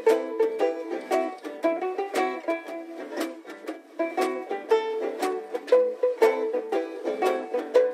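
Background music: a quick run of bright plucked-string notes, picked several times a second, with no bass.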